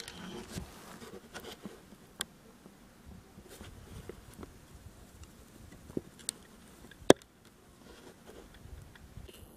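Quiet handling noise from a hunter's position: scattered soft rustles and small sharp clicks, a few seconds apart, with one much louder click about seven seconds in.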